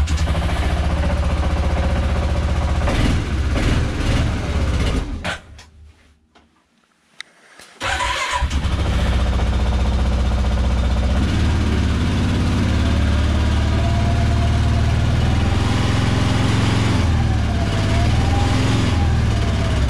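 ATV engine started cold in freezing weather and running. The sound drops out for about two seconds a third of the way in, then the engine runs again.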